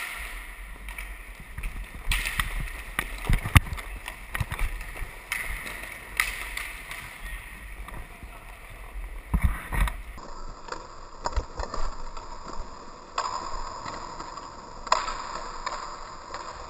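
Hockey play on a plastic sport-court rink: a steady rushing noise with scattered sharp clacks of sticks hitting the ball or puck and each other, and a few louder thuds.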